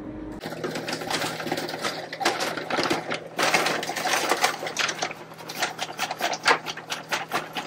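Brown paper bag of Chex cereal and powdered sugar being shaken to coat puppy chow: a fast, continuous rattling and rustling of cereal pieces against the paper, starting about half a second in.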